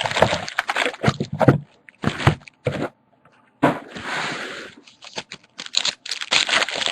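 Trading card pack wrappers crinkling and tearing as packs are opened and cards are handled: short sharp crackles, with a longer crinkling rustle about halfway through.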